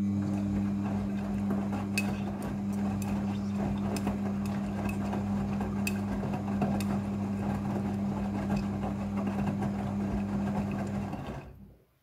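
Midea front-loading washing machine turning its drum during the rinse: a steady motor hum under the swish of wet clothes and water tumbling, with scattered light clicks. The drum stops near the end.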